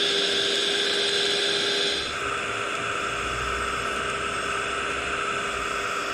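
Small electric suction fan of a scale-model RC suction excavator attachment running with a steady whine and hiss, its tone shifting about two seconds in.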